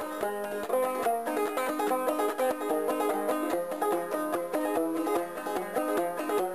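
Background bluegrass music with fast-picked banjo.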